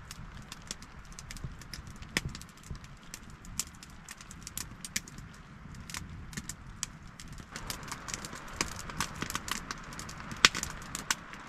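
Wood campfire crackling, with many irregular sharp pops and snaps. A soft hiss comes up under the pops about seven and a half seconds in.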